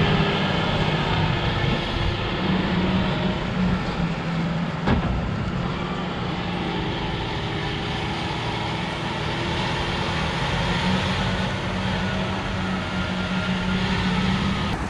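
Heavy machinery running steadily, an engine-like hum with a single sharp click about five seconds in.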